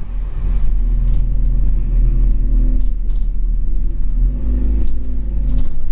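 Scania OmniCity N230UD double-decker bus's five-cylinder diesel engine running under way, heard inside the cabin. A deep steady rumble, with the engine note rising and falling a few times and occasional light rattles of the bodywork.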